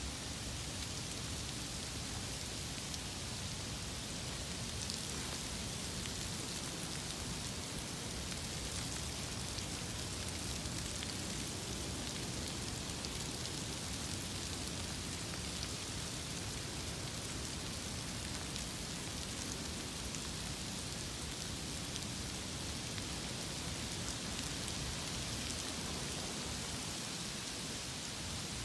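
Freezing rain falling steadily on iced-over grass and fallen leaves: an even hiss of fine pattering ticks.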